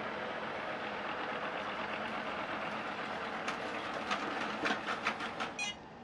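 ILIFE A6 robot vacuum running, its suction motor and brushes making a steady whir, as it drives back onto its charging dock. A run of clicks and knocks comes over the last couple of seconds as it bumps and settles onto the dock, and then the motor cuts off suddenly near the end.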